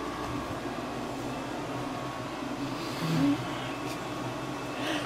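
Steady whirring room noise, with a brief low sound about three seconds in.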